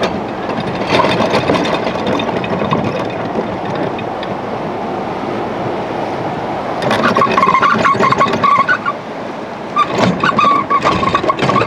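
Electric anchor windlass letting out chain in short runs: the chain rattles over the windlass with a motor whine, starting and stopping twice in the second half.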